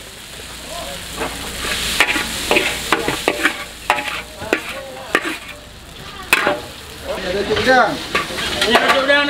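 Fried rice vermicelli stir-frying over high heat in a large wok: a steady sizzle, with a steel spatula scraping and knocking against the wok at irregular intervals.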